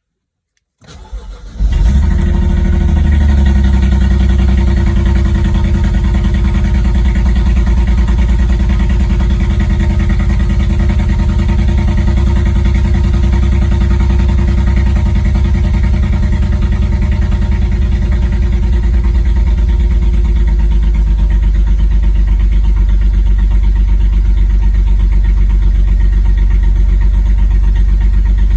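BMW Z4 E89 35i's twin-turbo straight-six starting from cold after a brief crank about a second in, then running at a steady fast idle that settles slightly lower about two-thirds of the way through. The idle is rough with a cold-start misfire.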